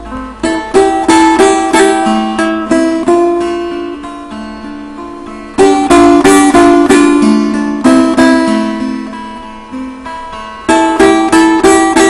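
Solo kopuz, a Turkic plucked long-necked lute, improvising. Flurries of quick plucked and strummed strokes come about a second in, near the middle and near the end, over ringing notes that fade between them.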